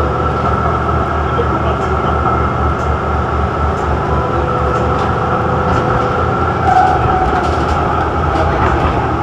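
Running noise inside an articulated electric tram under way: a steady rumble of wheels on rail with a constant whine, and a few light clicks.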